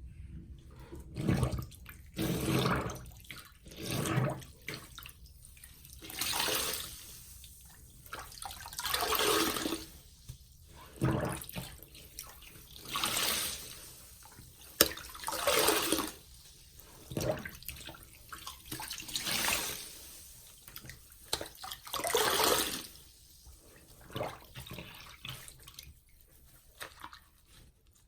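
Soapy sponge squeezed over and over, each squeeze a wet squelch of water and lather, about one every two seconds.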